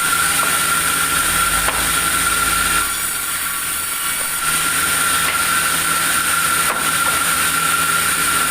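Sawmill saw running steadily through timber: a constant high whine over a loud rushing noise, with a low hum underneath and a few faint knocks.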